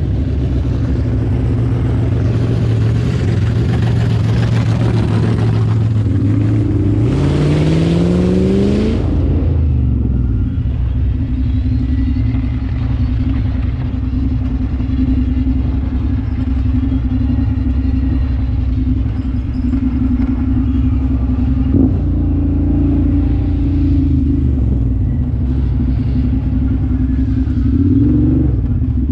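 Engine of an off-road vehicle running on a trail ride, revving up in a rising pitch about seven seconds in, then dropping back to a steady running drone with a brief rise again near the end.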